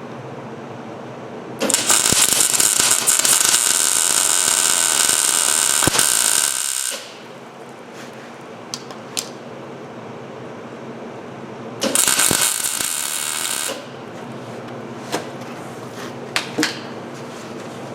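Welding arc crackling in two runs, one of about five seconds and a shorter one of about two seconds near the middle, as weld is laid onto a broken exhaust manifold stud in a cast-iron cylinder head. A few sharp clicks come between and after the runs.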